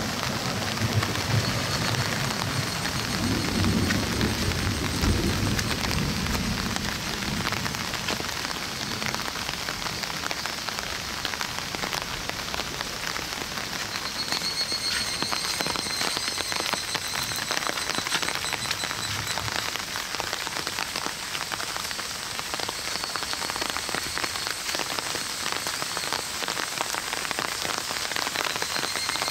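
Heavy summer thunderstorm rain falling steadily onto surfaces. A low rumble of thunder dies away over the first several seconds.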